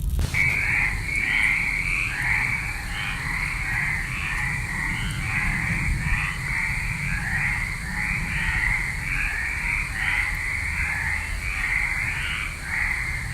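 A run of rasping, croak-like calls repeating about twice a second over a low rumble.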